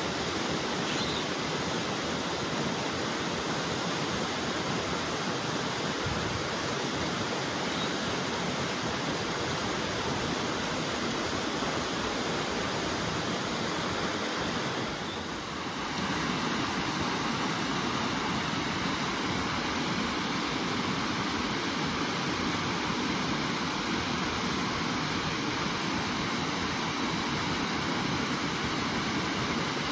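Steady rushing noise of flowing river water, even throughout with no distinct splashes, dipping briefly about halfway through.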